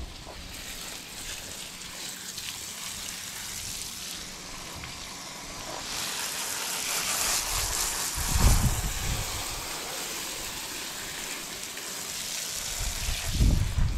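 Hose spray hissing and splashing as water rinses a soapy horse tail onto wet brick paving, growing louder for a few seconds in the middle. Two short low bumps break in, about eight and thirteen seconds in.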